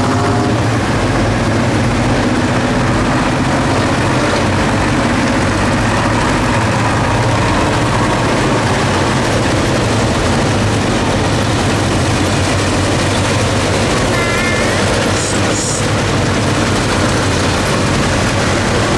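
Vintage tractor engine running steadily with a deep, low drone.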